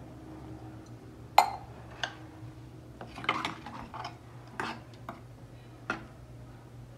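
Steel ladle knocking and scraping against the inside of a nonstick pressure cooker while stirring a watery vegetable curry. There are about six sharp clinks, the loudest about a second and a half in.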